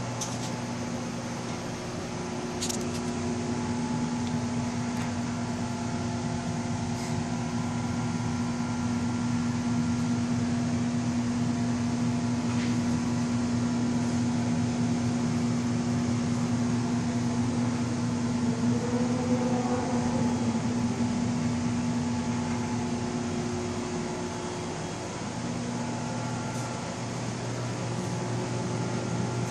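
Reef aquarium equipment (pump and filtration) running: a steady low electrical hum with a light hiss. The hum grows louder through the middle and drops back somewhat near the end.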